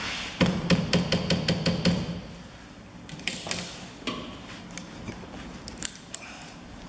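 WD-40 aerosol can being shaken, its mixing ball rattling at about six clicks a second for about a second and a half, followed by a few scattered short clicks as the spray is put to the wiper-arm nut.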